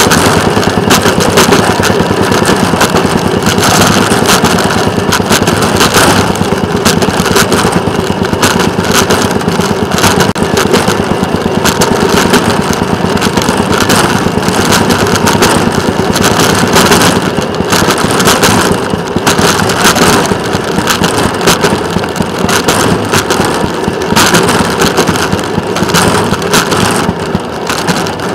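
A rail vehicle's engine runs steadily as it travels along the track, over a constant rattle and clatter of wheels on rail. It quietens a little near the end.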